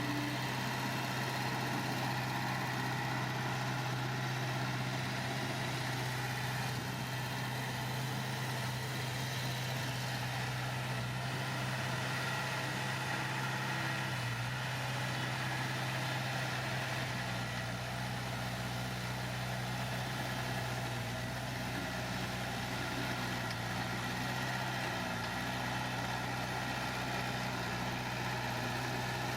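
Diesel engine of heavy earthmoving machinery running steadily, near idle, with a deeper low rumble joining about halfway through.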